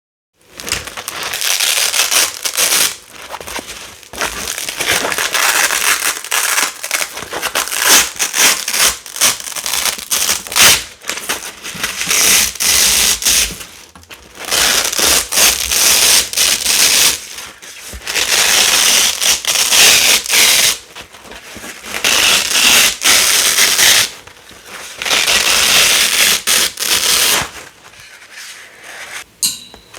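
A big roll of Velcro hook-and-loop tape being pulled apart again and again. Each peel is a rasping, crackling rip lasting one to three seconds, with short pauses between.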